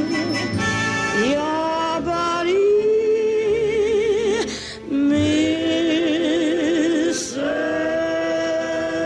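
A woman singing solo, holding long notes with a wide vibrato and sliding up into each new note, with a brief break about five seconds in.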